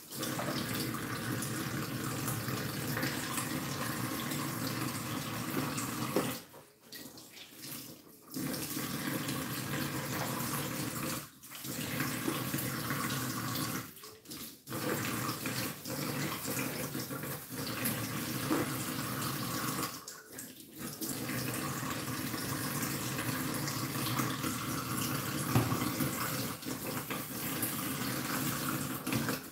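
Kitchen tap running into a stainless steel sink as dishes are washed under it. The water breaks off briefly four times, the longest break about two seconds long, about six seconds in.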